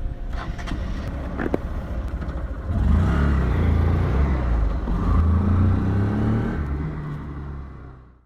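Motorcycle engine running, its pitch rising and falling as it revs. It grows louder about three seconds in and fades out near the end.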